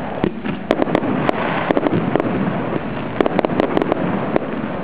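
Fireworks display: a dense crackling of many small bursts, with about a dozen sharp bangs from shells and launches going off at irregular intervals, sometimes several a second.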